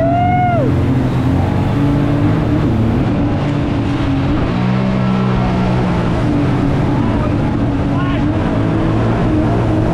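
Mud boat engine running steadily under way through shallow swamp water. A voice whoops once, rising and falling in pitch, at the very beginning.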